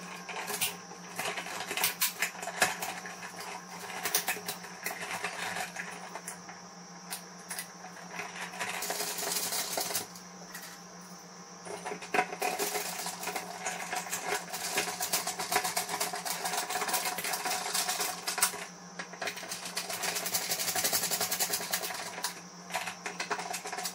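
A wall switch and its wires being pushed into a metal electrical box, then a hand screwdriver turning the switch's mounting screws: a run of small plastic and metal clicks, scrapes and rattles.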